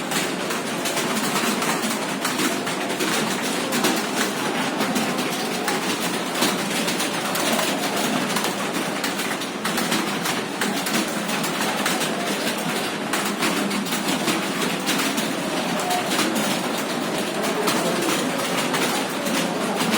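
Many computer keyboards being typed on at once by a room of typists, a dense, continuous clatter of keystrokes without a break.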